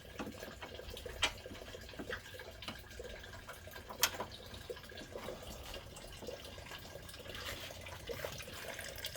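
Antifreeze trickling and dripping into a bucket as the radiator drains, with a few sharp metallic clicks.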